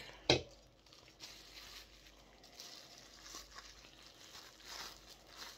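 Clear plastic bubble wrap crinkling and rustling as it is peeled off a small vinyl figure by hand, with one sharp snap about a third of a second in.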